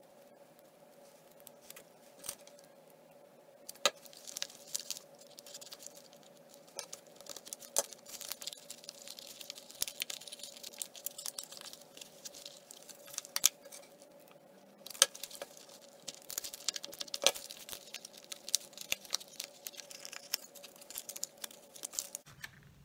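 Thin soda-bottle plastic being handled and pressed into place: scattered light clicks, taps and crinkles, busier in the second half. A faint steady hum underlies them and stops shortly before the end.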